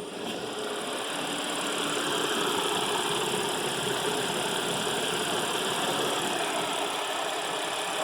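Audi A7 3.0 V6 engine idling steadily, freshly fitted with new timing chains and chain tensioners.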